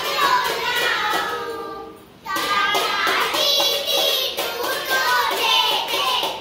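A group of young children singing the Tamil letters together as a song, with a short pause about two seconds in.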